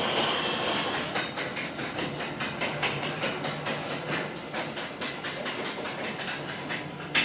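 Chamberlain Whisper Drive belt-drive garage door opener running on its battery backup, moving the door with a steady motor hum and a rapid, even clacking of the door rollers and sections. A louder click comes near the end.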